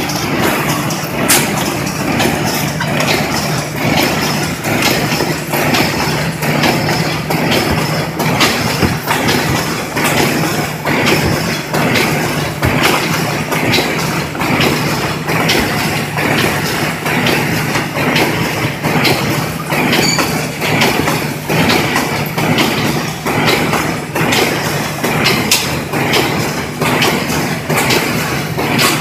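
Corrugated cardboard partition assembly machine running: a steady motor hum under continuous rapid clattering and clicking of its mechanism.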